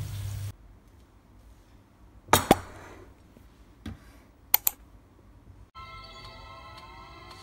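Oil sizzling under French fries in a frying pan, cut off about half a second in. Then two pairs of sharp clicks and taps with a fainter one between them, and background piano music starting near the end.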